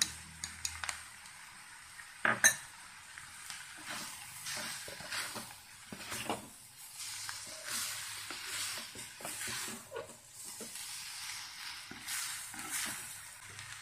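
Wooden spatula stirring and scraping a fish, grated coconut and spice mixture in a clay pot over a gas flame, with a soft sizzle underneath. The strokes come irregularly, with a sharp knock about two seconds in.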